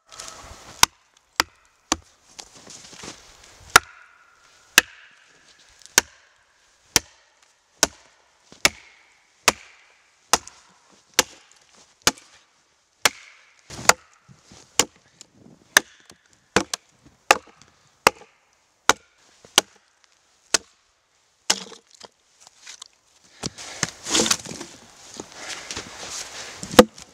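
An axe hammering wooden wedges into a log to split it lengthwise: a steady run of sharp blows, about one a second. Near the end the blows stop and the wood cracks and splinters as the log splits open.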